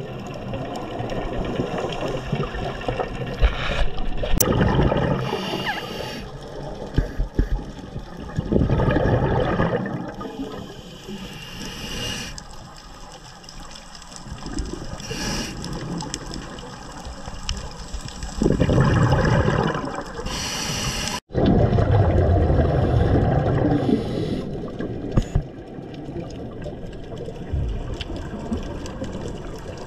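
Scuba diver breathing through a regulator underwater: loud gurgling bursts of exhaled bubbles every few seconds, with quieter stretches between.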